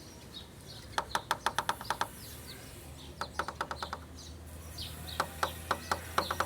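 A loose air-conditioning pipe in a Peugeot 1.6 16v engine bay rattling against its mounting in three short bursts of rapid knocks, about eight a second. It has come loose from its fitting, and the knock is easily mistaken for a suspension or drop-link noise. Birds chirp faintly behind it.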